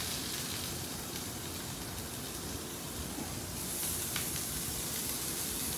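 Chunks of boiled gar sizzling in unsalted butter in a cast-iron skillet as they are laid in to sear: a steady hiss that grows louder about three and a half seconds in.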